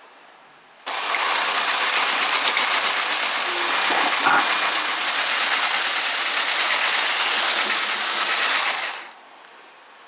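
Electric hand mixer whipping fresh cream and sugar in a glass bowl. It starts about a second in, runs steadily for about eight seconds, and stops suddenly.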